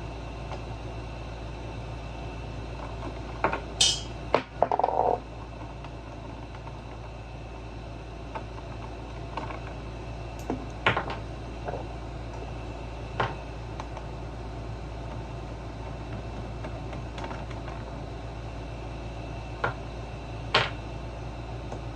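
Scattered light clicks and knocks of hand tools and parts being handled while a small generator is taken apart, a few at a time with gaps of several seconds, over a steady low background hum.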